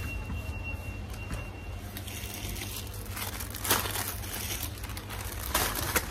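Plastic shopping trolley rolling along a supermarket floor, its wheels rumbling and its basket rattling, heard up close through a phone mounted on the trolley. Two sharper knocks come about midway and near the end.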